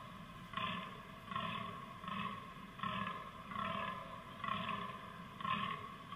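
Fallow deer buck groaning, its rutting call: a steady run of about seven groans, a little more than one a second.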